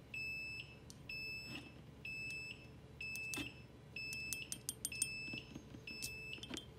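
Electronic beeping from the power supply of a 40,000-volt ion thruster rig: short high beeps repeating about once a second, which sound because the supply can't make sense of the high-voltage load. A few sharp clicks fall between the beeps over a low hum.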